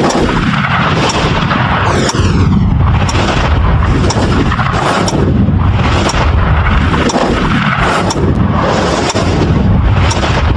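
Loud, distorted, boom-like noise: a constant deep rumble with a falling sweep about once a second.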